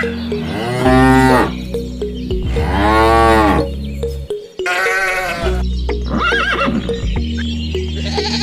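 Background music with farm-animal calls mixed in: four long, arching calls like cattle mooing over a steady, repeating backing track.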